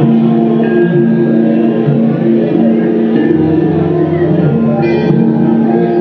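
Music made of dense, overlapping, sustained tones that keep up a steady level throughout.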